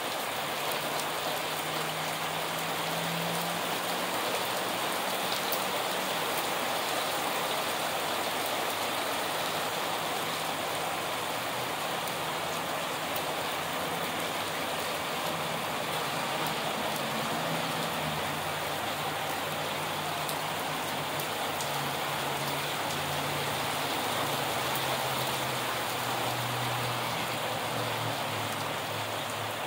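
Heavy rain pouring steadily onto the ground and nearby surfaces, a dense even hiss with no thunder.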